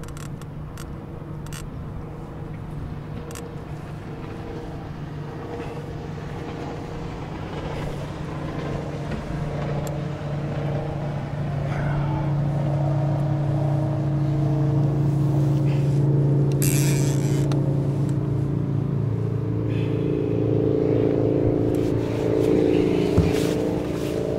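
Boat engine running steadily, getting louder about a third of the way in and staying strong.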